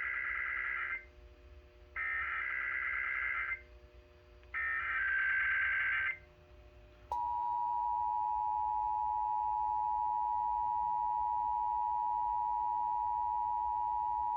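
Emergency Alert System SAME header from a Sage Digital ENDEC: three bursts of warbling data tones, each about a second and a half long. About seven seconds in, the steady two-tone EAS attention signal begins and holds to the end, opening a Required Weekly Test relayed from the IPAWS Open CAP feed.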